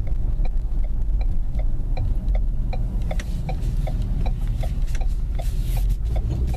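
Turn signal clicking steadily, about three clicks a second, over the low drone of the Ford Explorer Sport's engine and road noise heard from inside the cabin.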